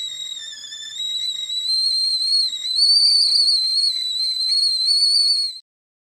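Tea kettle whistling at the boil: a single high, slightly wavering whistle that grows louder after the first second and cuts off suddenly near the end.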